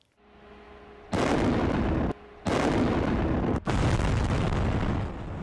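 Explosive demolition charges going off to bring down a concrete cooling tower: a sudden loud blast about a second in, then more blasting and rumbling, twice broken by brief drops, easing a little near the end.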